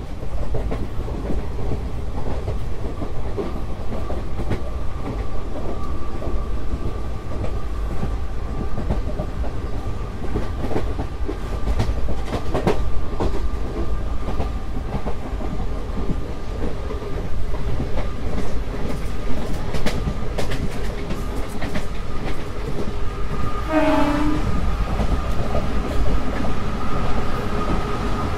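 WCAM-1 electric locomotive hauling a passenger train at speed, with the steady whine of its traction motors over the rumble and clatter of wheels on the track. A short horn blast sounds near the end.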